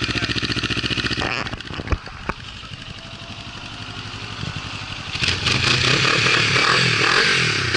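Kawasaki Ninja 400 parallel-twin running through an Akrapovic carbon slip-on exhaust. It is loud and even at first, drops away about a second in with two sharp clicks, then builds back up and comes in loud again about five seconds in.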